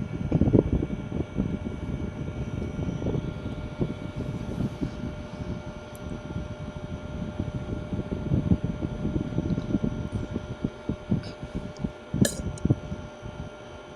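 Ceiling fan running with a clip attached, its moving air buffeting the microphone in a low, fluttering rumble. A sharp click comes about twelve seconds in.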